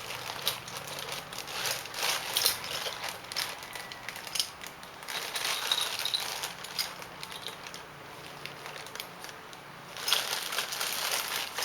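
Plastic being handled and crinkled, with a crackling rustle and scattered small clicks; it gets louder again about ten seconds in.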